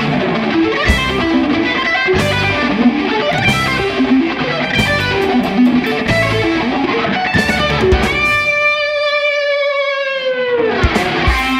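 Distorted electric guitar, a Fender Stratocaster through the Mooer Micro Preamp 015 Brown Sound's mid/high-gain channel and its cabinet emulation, playing a fast rhythm riff over programmed drums and bass. About eight seconds in, the backing drops out and a single held note rings on, then dives steeply down in pitch just before the drums come back in.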